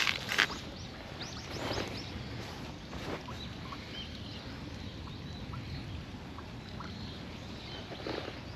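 Rustling and brushing of a padded jacket and clothing as a cat climbs onto a crouching person's lap, with a couple of louder handling knocks near the start. Faint high chirps sound over a steady outdoor background.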